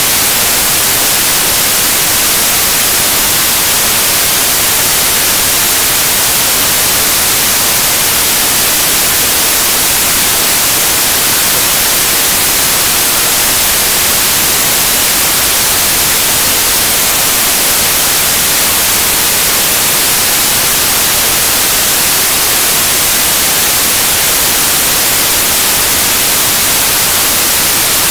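Loud, steady static hiss, brighter toward the high end, with no change and no other sound standing out above it.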